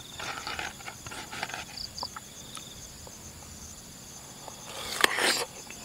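A crisp, wet crunch as a bite is taken from a raw jicama (bengkuang) chunk, about five seconds in, after a few soft clicks. Insects chirp steadily and faintly in the background.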